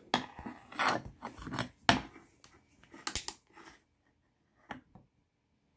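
Metallic clicks and scrapes of a Pietta 1851 Navy cap-and-ball revolver's steel action worked by hand: the hammer is drawn back to full cock, turning the cylinder. The clicks come irregularly, the loudest about two seconds in, a quick cluster about a second later, and two softer clicks near the end.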